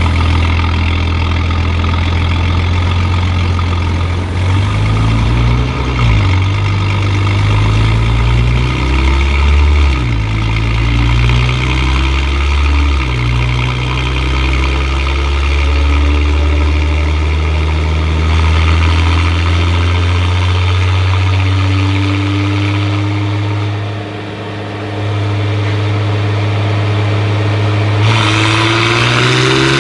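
Engine and Armytrix full exhaust of a 2018 Audi S5 B9 (turbocharged V6) running under load on a chassis dyno. It runs steadily at low revs with a few short blips, then the revs climb slowly, dip briefly, and rise faster near the end.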